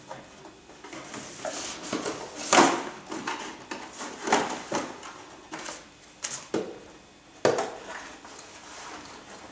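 Handling noises of a hair dryer and its parts: irregular knocks, clicks and rustles of plastic being moved and set down, the loudest a knock about two and a half seconds in and another about seven and a half seconds in. The dryer is not running.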